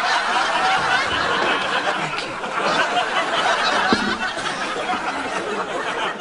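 Studio audience laughing steadily, a crowd of many voices.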